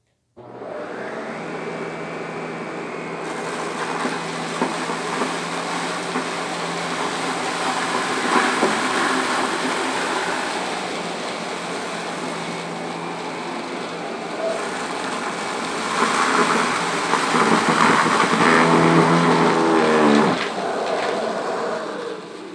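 Shark vacuum cleaner switched on and running with a steady motor hum over a carpet, crackling and rattling as it picks up debris, louder from about 16 to 20 seconds in. It is then switched off and its motor winds down with a falling pitch.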